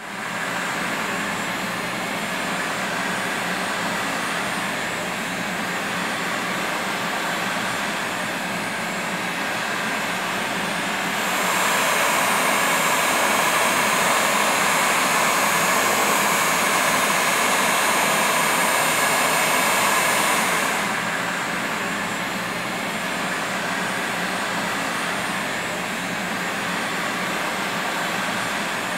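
Electric heat gun running, a steady blowing whoosh, played over a faded plastic car bumper to darken it. It grows louder for about ten seconds in the middle, then drops back.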